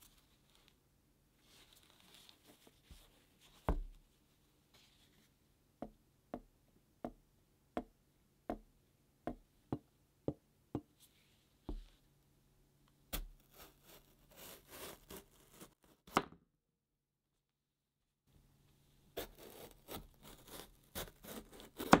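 Knife cutting a crisp yellow bell pepper on a cutting board. A single thump is followed by a run of about ten evenly spaced sharp clicks, then bursts of crunchy slicing, with a sharp knock of the blade on the board near the end.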